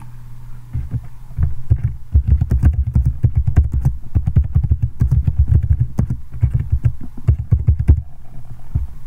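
Fast typing on a computer keyboard: a dense run of keystrokes starting a little over a second in and stopping shortly before the end, over a steady low hum.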